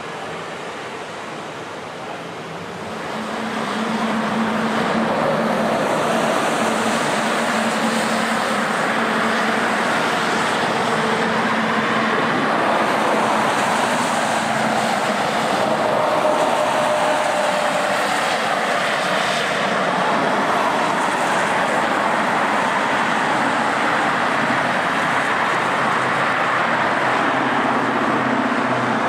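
Jet airliner's engines: a broad rush of noise that swells about three seconds in and then stays loud and steady.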